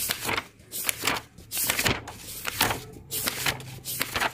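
Paper textbook pages being turned one after another: a quick series of rustles and flaps, several a second.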